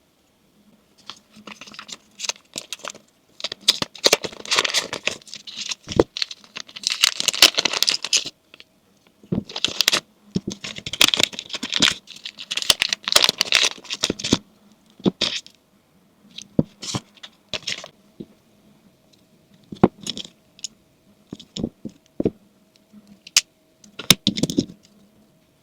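Packaging of a DJI Osmo Action 5 Pro camera being opened and handled: stretches of tearing, rustling and scratching, then scattered sharp clicks and taps over the second half.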